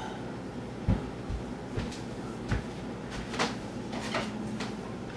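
Kitchen handling noises: a few dull thumps in the first two and a half seconds, then scattered light knocks and clicks, over a faint steady hum.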